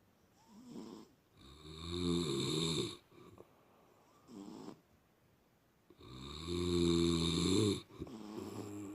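A domestic cat snoring in its sleep: two long snores about four and a half seconds apart, with shorter, softer breaths in between.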